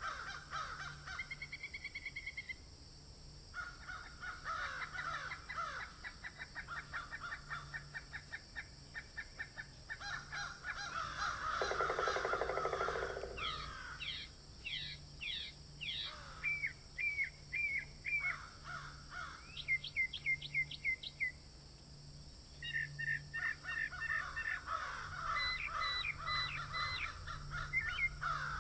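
Wild birds calling and singing in a mountain forest: rapid trills, runs of short repeated chirps and whistled notes from several birds. The loudest is a harsher call about halfway through.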